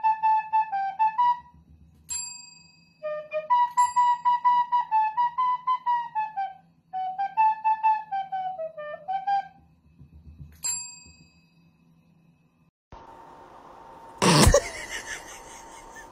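A small flute plays short melodic phrases, broken twice by a single ding of a service bell under a Shiba Inu's paw. Near the end the melody stops and there is one loud, sudden breathy burst.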